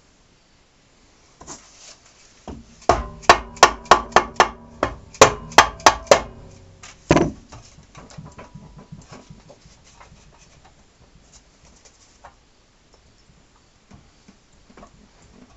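Dead blow hammer striking a Harley-Davidson Dyna's inner primary case: about a dozen quick blows in some three seconds, then one more about a second later, knocking the loosened case so it walks off. Light knocks and handling noise follow.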